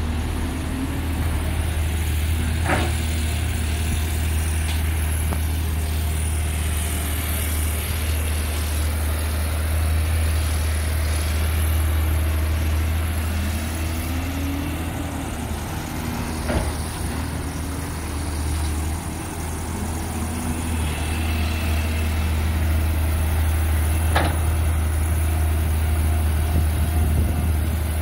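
Caterpillar 320D tracked excavator's diesel engine running steadily with a deep hum, with a few sharp clanks from the machine as it works.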